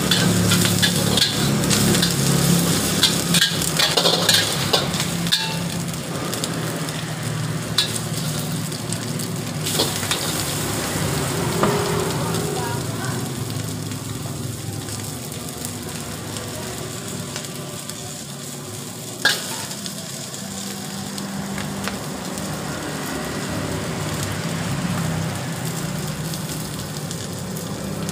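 Vegetables and egg sizzling in a steel wok, with the metal ladle scraping and clanking against the pan, busiest in the first six seconds. The sizzle settles quieter once rice vermicelli noodles are in the wok, with one sharp clank later on.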